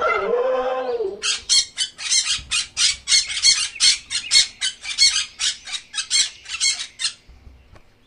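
Sulphur-crested cockatoo calling: a pitched call that bends in the first second, then a rapid string of short, harsh squawks, about four or five a second, stopping about seven seconds in.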